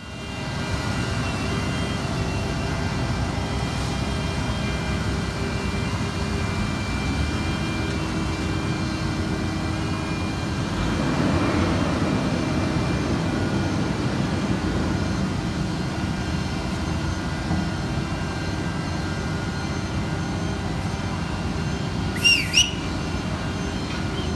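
Heavy diesel paving machinery running steadily, a low engine din with a constant whine over it that swells a little midway. Two short, sharp, high squeaks come near the end.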